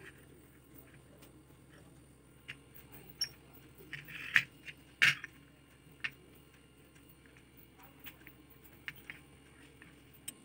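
A handful of faint, irregular clicks and taps of a steel fork against stainless-steel mini idli plates as it presses ridges into soft dough balls.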